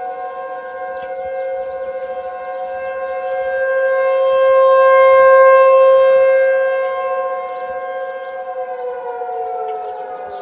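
Outdoor civil defense warning siren sounding a steady tone during a siren test. It swells louder and fades once, then its pitch starts to fall near the end as it winds down.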